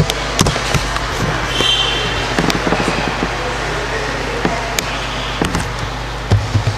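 Scattered sharp clicks and light knocks over a steady low room hum. Low rhythmic thumps, like the beat of background music, start near the end.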